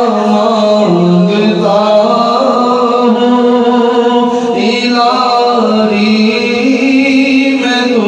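A man singing a naat, a devotional praise poem, into a microphone, unaccompanied: long held, ornamented notes that step up and down in pitch.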